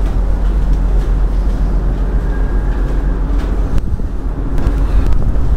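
Steady low rumble of a car ferry's engines, with wind buffeting the microphone on the open deck.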